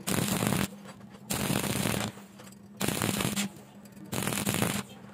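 Stick welding arc crackling in short bursts: the arc is struck and broken four times in an even rhythm, each burst lasting under a second with a brief pause between.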